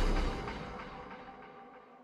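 Background music fading out steadily toward near silence.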